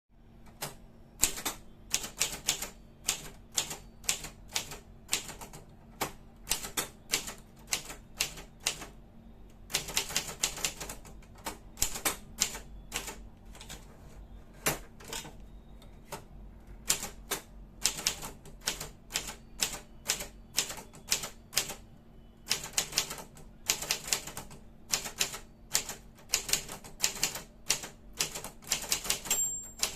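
Brother Deluxe 750TR typewriter being typed on: rapid, uneven runs of sharp key strikes broken by short pauses, over a faint steady hum, with a brief high ringing tone near the end.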